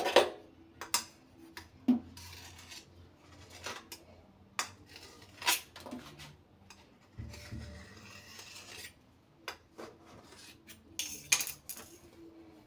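Stainless-steel bowl and metal utensils clinking and knocking on a granite countertop, a scattered series of sharp clinks with two short stretches of scraping, while the bowl is used to cut rounds from rolled samosa dough.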